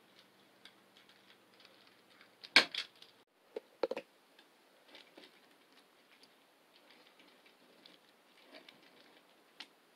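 Light clicks and knocks of 3D-printed plastic wheels and drive-shaft parts being handled on a wooden tabletop. The sharpest cluster of knocks comes about two and a half seconds in, with a few more about a second later and fainter taps after.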